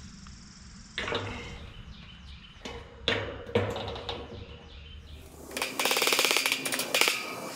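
A hammer driving nails to fasten a hog-wire panel to a wooden frame: a few separate sharp strikes, then near the end a fast rattling run of quick taps with the wire ringing.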